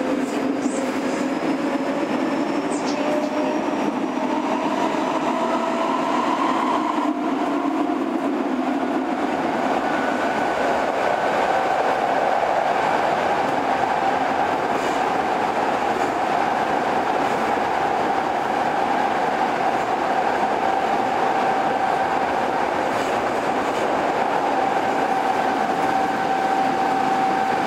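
Kobe Municipal Subway 1000 series car's GTO-VVVF inverter and traction motors whining under the running noise of the train. The whine rises in pitch for the first several seconds, breaks briefly, then settles into a steady tone over the rail rumble.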